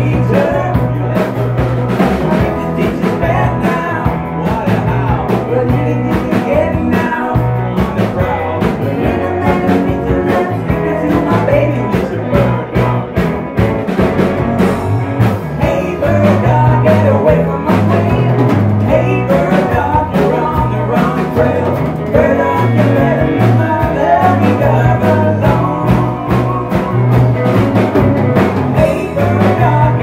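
Small rock and roll band playing live: male and female voices singing together over guitars, a bass line and a drum kit.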